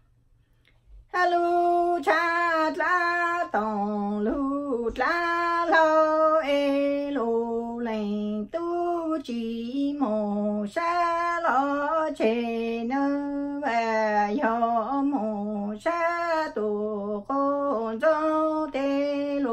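A woman singing Hmong lug txaj, traditional sung poetry, solo with no accompaniment, in long held phrases whose pitch wavers and slides between notes. She starts about a second in, after a brief pause.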